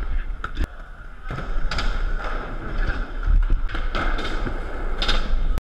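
Indoor skate park sound: skateboards rolling over the floor with sharp clacks and knocks, and children's voices. Deep rumble of handling on the camera. It cuts off abruptly to silence near the end.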